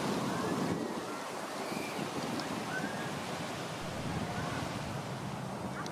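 Ocean waves washing on the beach, a steady surf noise, with wind buffeting the microphone.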